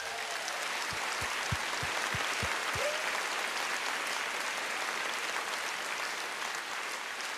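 Concert audience applauding steadily. A few low thumps sound in the first three seconds, and a short rising whistle comes about three seconds in.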